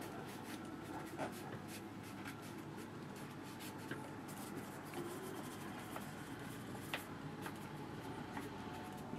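A flat paintbrush stroking paint across watercolour paper: faint scratchy brushing with a few soft ticks.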